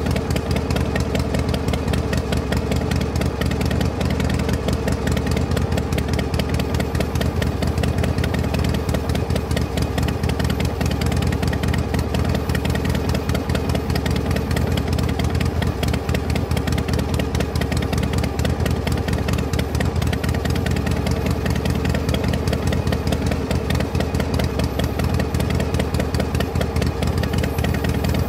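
Engine idling steadily with a low, even chug that does not change in speed or loudness, typical of a tractor engine sound.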